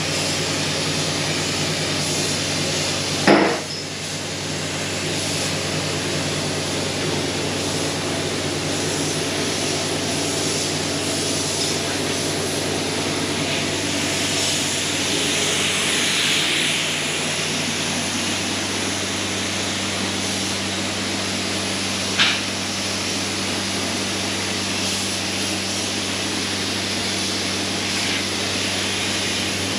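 Steady machine noise, a low hum with a hiss over it, broken by two sharp knocks: one about 3 seconds in and one about 22 seconds in.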